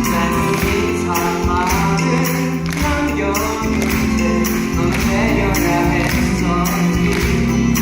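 Live musical theatre number: singers' voices over band accompaniment with a steady percussion beat.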